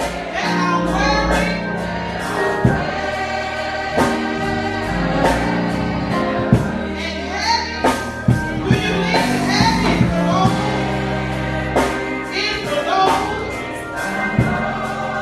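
Gospel music: a choir singing with a band, drums and bass keeping a steady beat.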